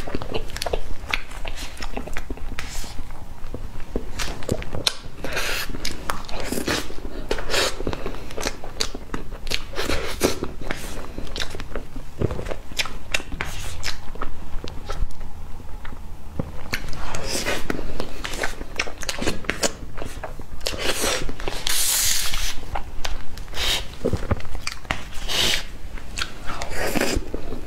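Close-miked eating of soft cream sponge cake with mango pieces: wet chewing and smacking mouth sounds, with many short irregular clicks.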